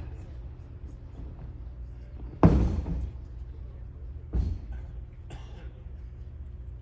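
A person's body landing hard on the mat in an aikido breakfall: one loud thud about two and a half seconds in, then a smaller thud nearly two seconds later as the thrown partner is pinned.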